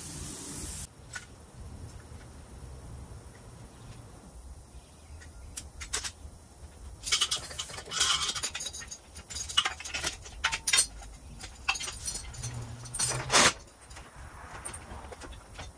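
Metal hardware clinking and rattling in irregular bunches, like chain and clamp parts being handled. A short hiss at the start cuts off under a second in, and a louder clank comes about 13 seconds in.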